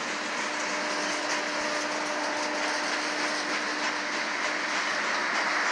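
Freight train of covered hopper cars rolling past, steel wheels on the rails making a steady rush with faint clicking, and a faint steady tone that drops away near the end.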